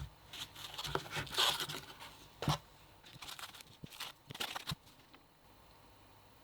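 Plastic packaging being handled and torn open: crinkling and rustling with sharp clicks and taps, stopping about five seconds in.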